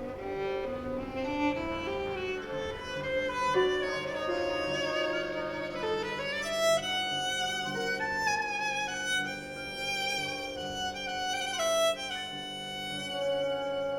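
Violin playing a melodic line with slides between notes, over steady held lower notes.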